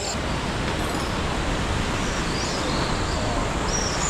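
A steady rushing noise of wind and surf on a sea cliff, with the high, gliding chirps of a flock of swallows twice in the second half.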